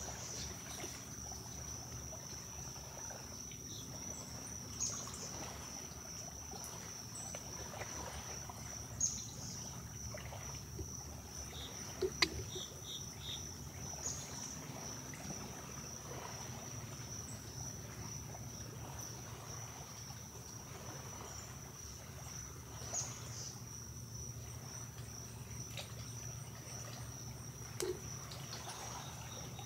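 Steady, high-pitched chorus of insects, with a few faint splashes and small sharp sounds from white-tailed deer wading and drinking in shallow pond water.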